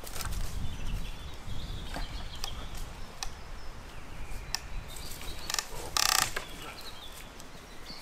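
Wooden sticks of a roof-cap frame knocking, creaking and rustling against reed thatch as it is handled into place, with scattered clicks and a louder brief scrape about six seconds in.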